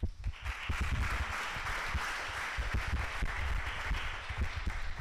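Audience applauding, the clapping starting a moment in and holding steady.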